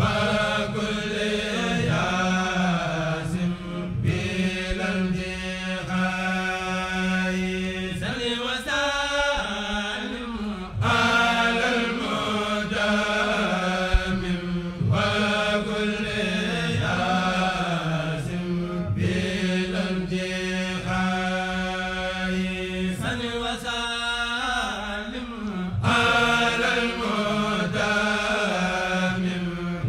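Background music: a voice chanting a melody over a steady low drone, in long phrases with short breaks between them.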